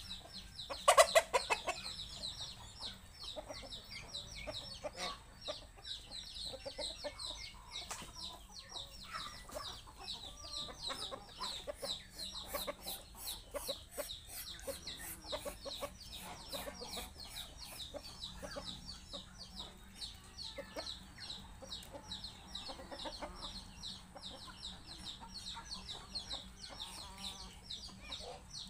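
Chickens clucking while they feed, over a dense, fast, high-pitched chirping that runs throughout. One loud bird call about a second in is the loudest sound.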